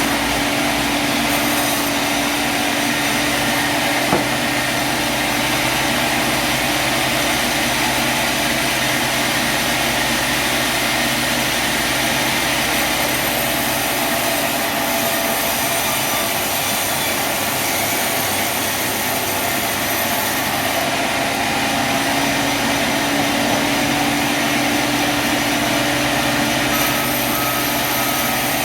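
Sawmill machinery running steadily, a dense, even noise over a constant hum. A single sharp click about four seconds in.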